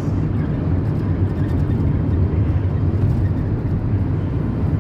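Steady low rumble of road and engine noise from a vehicle moving at highway speed, heard from inside the cabin.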